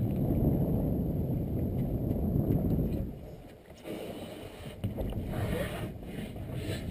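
Wind rumbling and buffeting on the microphone over the boat's background noise. It eases off about three seconds in, then picks up again with a few light knocks.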